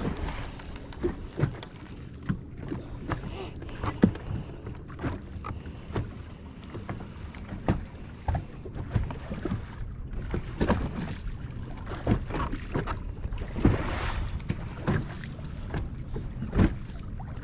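Small waves slapping irregularly against the hull of a bass boat rocking on choppy water, over a steady low hum and wind on the microphone.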